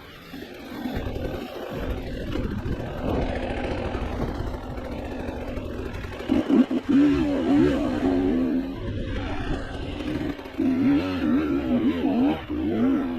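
Off-road motorcycle engine revving up and down as it climbs and descends a rough trail, its note rising and falling with the throttle and growing louder from about halfway through. The audio is sped up to one and a half times normal speed, which raises the pitch.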